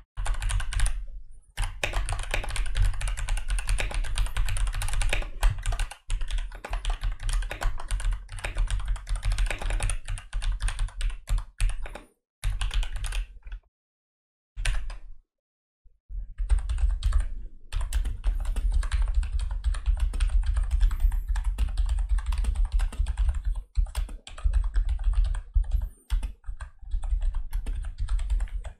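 Fast typing on a computer keyboard, recorded through a desktop microphone, with a strong low rumble under the clatter of the keys. The typing breaks off into short silences a little before halfway through, then resumes.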